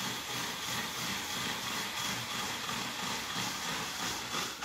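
Hand-cranked Pampered Chef spiral vegetable cutter with its fusilli blade cutting a white onion into spirals. The blade makes a steady rasping crunch through the onion, pulsing evenly with the turning.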